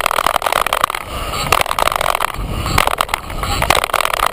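Mountain bike riding fast down a dirt trail, heard from a camera on the bike: a steady rush of wind on the microphone and tyres on dirt, broken by many quick rattles and knocks over bumps.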